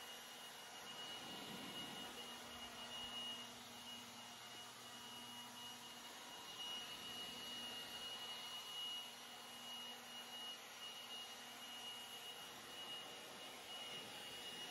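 Electric blower running steadily, a rush of air with a steady high-pitched whine, blowing dust off a concrete floor.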